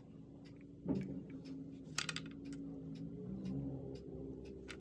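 Faint scattered ticks and clicks of grated mozzarella being sprinkled by hand onto bread slices and the plate, over a steady low hum that starts about a second in.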